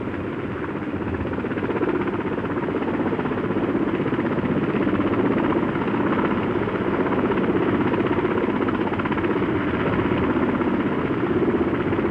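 Westland Wessex helicopter running on the ground with its main rotor turning, a steady rapid rotor beat over the engine noise.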